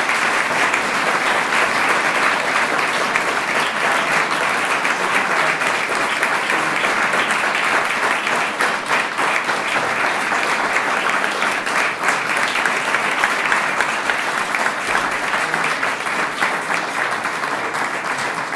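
Audience applauding, a dense, sustained clapping of many hands that eases off slightly near the end.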